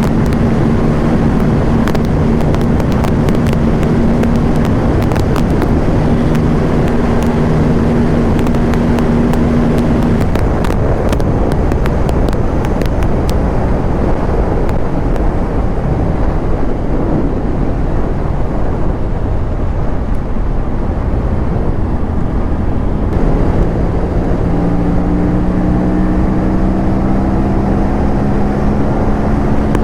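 Aprilia sport bike's parallel-twin engine on the move under heavy wind rush. It holds a steady note for about ten seconds, then drops away under the rushing noise with a scatter of sharp clicks. About 24 s in, the engine note comes back and rises as the bike accelerates.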